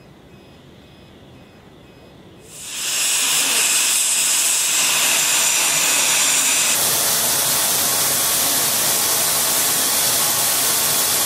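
Class 15F steam locomotive letting off steam: a loud, steady hiss that starts about two and a half seconds in.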